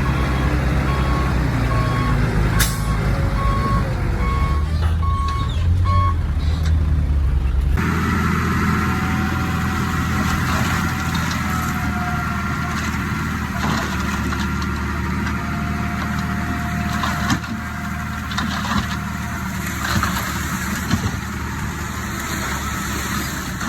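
Heavy diesel engine running, with a reversing alarm beeping steadily for the first six seconds. Near eight seconds the sound changes abruptly to another steady diesel engine, with occasional clanks.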